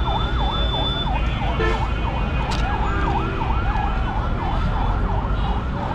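A siren-like electronic wail sweeping quickly down and up in pitch several times a second, over a steady low rumble of street traffic.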